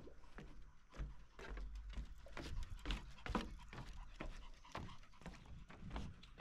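A Pomeranian's paws and a person's footsteps on the dry wooden planks of a pier, a quick irregular patter of clicks and knocks.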